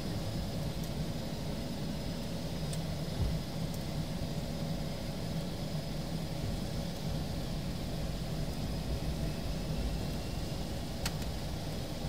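Aircraft engines running steadily at low power during taxi: an even low rumble with a faint steady high whine over it.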